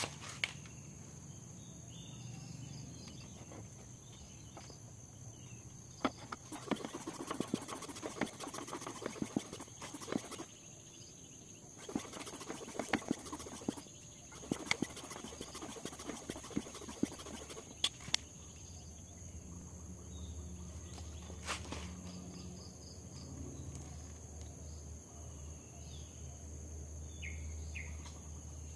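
Hand-operated tyre pump re-inflating a plugged car tyre: two spells of quick, rasping pump strokes with a short pause between. Birds call and insects drone steadily behind it.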